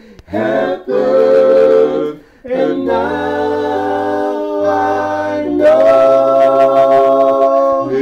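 Unaccompanied gospel hymn singing: three sung phrases, the last ending on a long held note.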